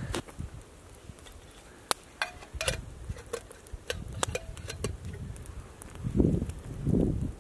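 Small metal camp cookware handled at a campfire: a string of light clicks and clinks, a few with a short metallic ring, then two louder dull thumps near the end.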